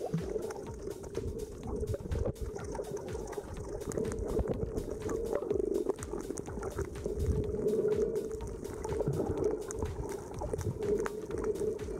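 Underwater ambience picked up by a camera submerged over a coral reef: muffled water rumbling and sloshing that swells and fades, a steady low hum, and a fine crackle of small clicks throughout.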